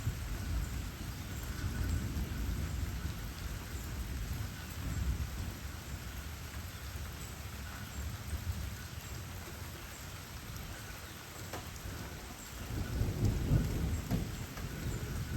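Rain falling under a low rumble that swells louder for a couple of seconds near the end.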